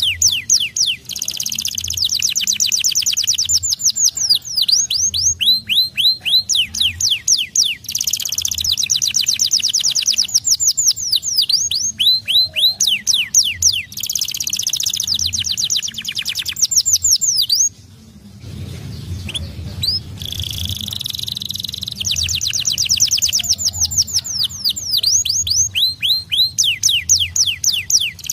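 White canary (kenari pocong) singing a long run of fast trills, rows of quick falling notes repeated many times a second. There is a short break about two-thirds of the way through.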